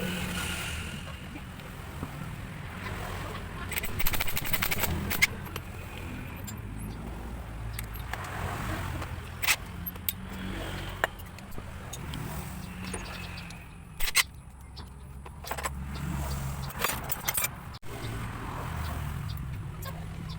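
Metal tools and engine parts clinking and knocking at irregular moments during motorcycle engine disassembly, over a steady low hum.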